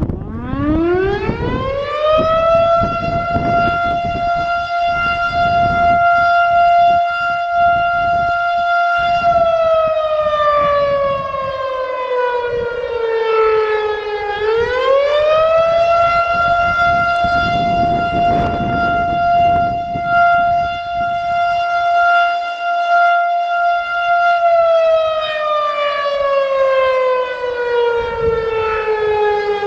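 Federal Signal STH-10 single-tone electromechanical tornado siren sounding a test. It winds up within a couple of seconds to a steady high note and holds it, winds part way down about halfway through, winds back up to the same note, then begins winding down again near the end.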